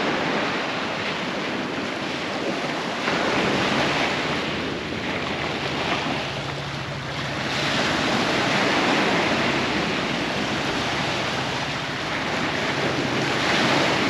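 Ocean surf breaking on a rocky shore, swelling and easing every few seconds, with wind buffeting the microphone.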